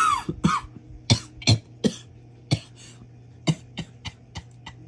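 Crunchy tortilla-style protein chips being bitten and chewed close to the microphone. A string of sharp, irregular crunches is loudest in the first two seconds, then fainter and more spaced out.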